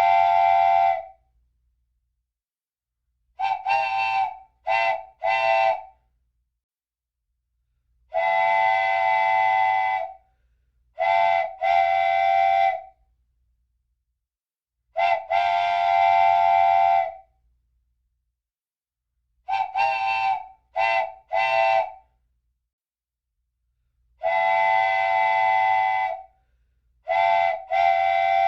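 Train horn sounding a steady chord of several notes in a repeating pattern: one long blast of about two seconds, then a group of two or three short blasts, with complete silence between the groups.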